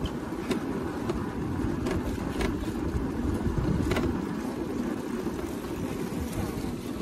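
Steady low rumble of wind on the microphone and road noise from a moving scooter, with a few faint clicks.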